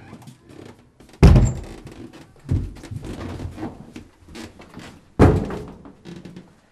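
Wooden wardrobe door being handled: a heavy thunk about a second in, another at about two and a half seconds, small knocks and clatter while it stands open, and a second loud thunk at about five seconds as it is shut.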